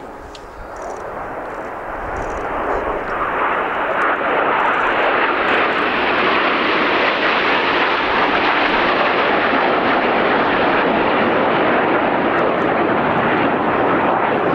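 Jet engine noise of Aermacchi MB-339 jets flying over. It swells over the first few seconds and then holds loud and steady.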